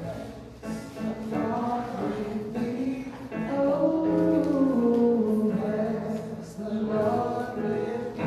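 Gospel-style church music: singing over instrumental accompaniment.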